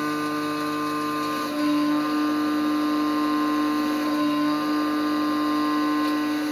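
CNC milling machine spindle and cutter running during plunge milling: a steady machine hum made of several held tones, starting abruptly.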